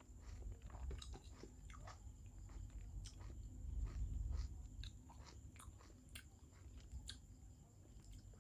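A person chewing and eating rice with fish curry by hand, with scattered small clicks, crunches and wet mouth sounds close to the microphone.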